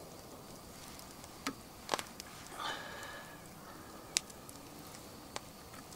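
Quiet outdoor ambience broken by a few isolated sharp clicks and one faint, short whistle-like tone.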